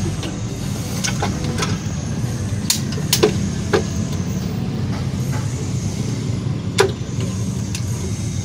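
Sharp metallic clinks of hand tools and small parts against a bare diesel engine's cylinder head during assembly, about six spread through, the loudest a little before the end. Under them runs a steady low drone.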